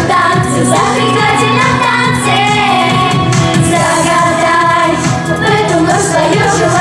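Vocal pop ensemble singing a New Year song with instrumental accompaniment with a steady beat.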